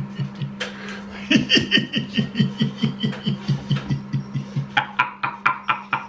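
A man laughing in a long run of short chuckles, about four a second, starting about a second in, over a steady low hum.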